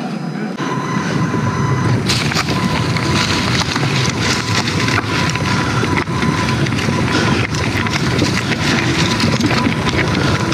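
Mountain bike being ridden over a rough trail: a steady rumble of tyre noise and rattling, with wind noise on the microphone. The sound gets rougher about two seconds in.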